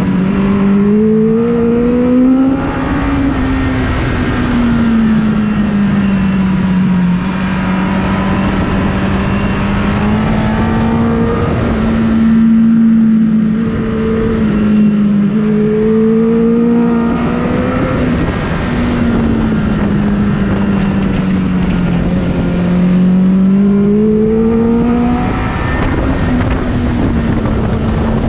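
Onboard sound of a motorcycle engine running hard on a racetrack, its note rising and falling slowly several times over a steady rush of wind noise.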